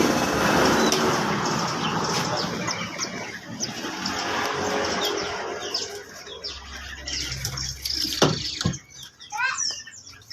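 Many small caged songbirds chirping with short, high calls, over a rough rustling noise that fades away during the first half. Near the end there are a couple of sharp, loud notes followed by a quick warbling run of calls.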